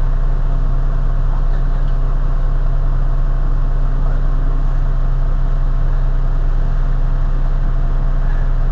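Heuliez GX 127 city bus's diesel engine idling steadily with a low, even hum.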